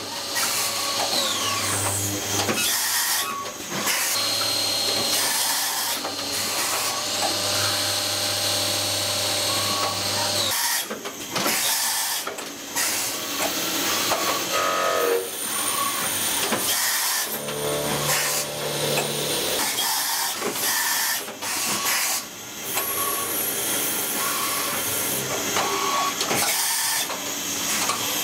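CNC machining centre cutting a brass fitting: spindle whine and tool cutting noise with coolant and chip spray. Whining tones start, stop and glide as the tool moves, among repeated short bursts of hiss.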